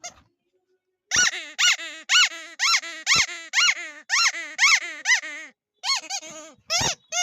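Duck toy squeaking over and over, about two squeaks a second, each rising and falling in pitch, with a brief pause a little after halfway.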